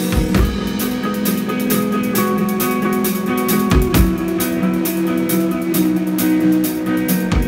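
Live rock band playing: electric guitars ringing sustained notes over bass guitar and drum kit, with a steady wash of cymbal strokes and a few heavy low drum hits.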